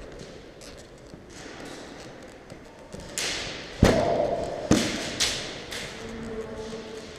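A few sharp knocks and cracks starting about three seconds in, roughly half a second apart. The loudest comes near four seconds and rings briefly after it.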